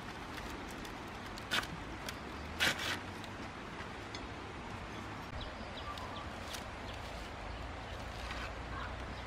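Rustling and crackling of leafy vine stems being pulled and handled over a wicker basket, with two sharp crackles about a second and a half in and just before three seconds, over a steady outdoor hiss.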